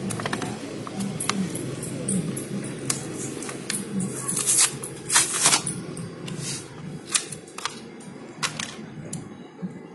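A series of irregular clicks and clinks from motorcycle clutch parts being handled, over a steady background hum. The clicks come thickest about four to six seconds in.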